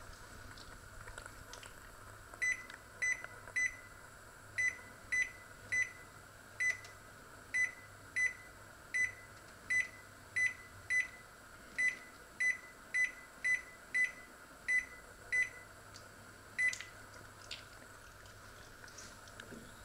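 Combination microwave oven's control panel beeping once for each button press, about twenty short high beeps in irregular runs, as the oven temperature is set to 210 °C.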